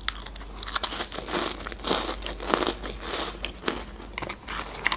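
A biscuit stick with chocolate cream being bitten and chewed close to the microphone: repeated crisp crunches with wet mouth sounds.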